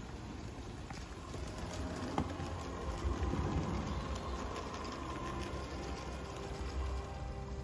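A small garden-scale model train, a locomotive with an open wagon, running along its track with a low rumble.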